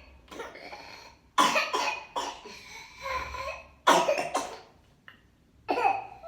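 A child coughing in a whooping cough (pertussis) fit: repeated harsh coughs coming in several bouts, with short pauses between them.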